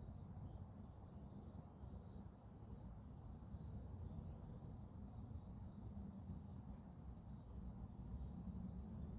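Faint outdoor ambience: many small birds chirping and twittering in the distance, over a steady low rumble.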